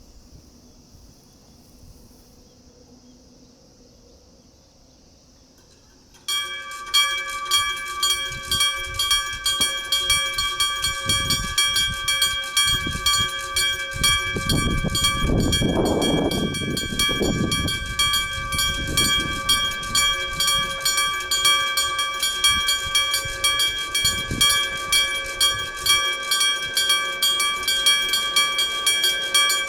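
A steady high insect buzz, then about six seconds in an electric level-crossing bell starts ringing with rapid, regular strikes and keeps ringing. Over the middle a freight train rumbles through the crossing, loudest about halfway, with wheels clattering over the rails beneath the bell.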